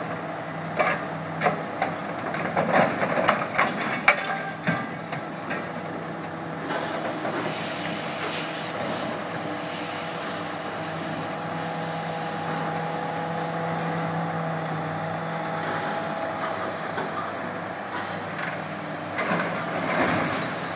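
Scrap-handling excavator with a grapple working: clanks and bangs of metal for the first several seconds as the grapple grips a metal cooling-tower section, then its diesel engine and hydraulics running steadily as it lifts and swings the load, with a few more metal knocks near the end.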